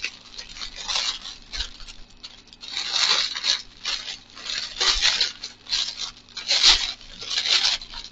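Thin clear plastic packaging bag crinkling and rustling in the hands as it is worked open, in a run of bursts about a second apart.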